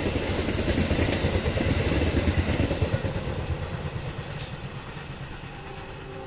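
Express passenger train's coaches rumbling over the rails as the tail of the train passes, then fading steadily as it recedes about three seconds in.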